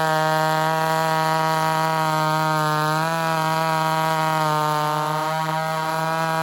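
Ported Homelite XL-76/XL-130 hybrid chainsaw running steadily at high revs, its pitch dipping briefly about three seconds in. It is running a little lean and won't drop into four-stroking, a sign that it needs more fuel.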